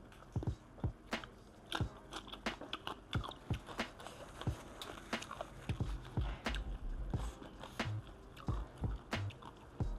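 Close-miked chewing and mouth sounds of someone eating spicy som tam salad: irregular wet clicks and crunches, several a second.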